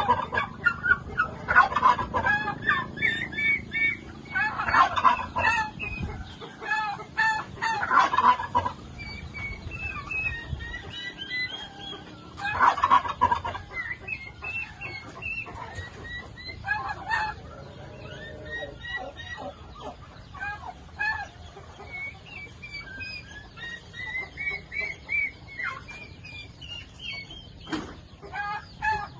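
A flock of farm poultry, turkeys among them, calling. Loud bursts of calls come every few seconds over many short, high calls.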